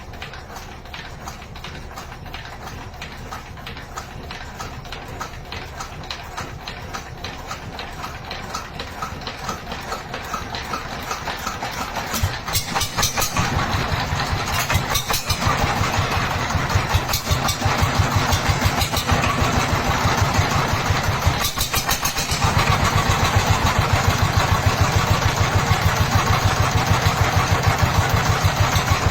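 Dongfeng single-cylinder diesel engine running with a steady, rapid beat, getting louder in two steps, about twelve and twenty-two seconds in.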